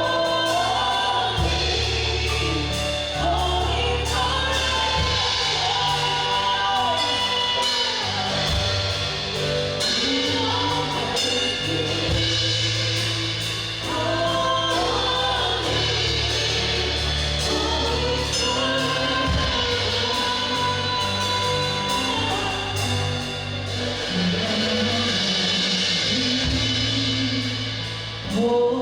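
Worship band and singers performing a gospel-style worship song with drums and bass.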